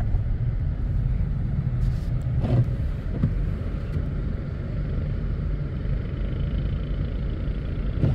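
GMC Yukon SUV being driven, a steady low engine and road rumble heard from inside the cabin.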